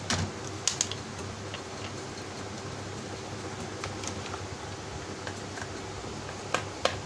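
Sharp clicks and light knocks of a screwdriver working on the plastic housing of a Samsung window AC's display board as its screws are taken out: a couple near the start, a couple near the end, and fainter ticks between. A steady low hum runs underneath.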